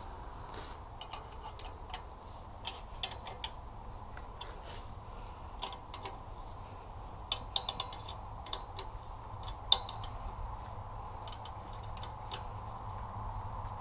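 Wrenches and a socket tool clicking and clinking against metal as nuts on a small diesel engine are tightened: irregular sharp metallic ticks, a few louder knocks among them, over a steady low background noise.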